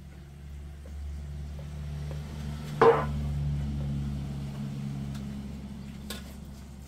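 A low, steady engine hum that swells and then slowly fades, with one sharp knock about three seconds in.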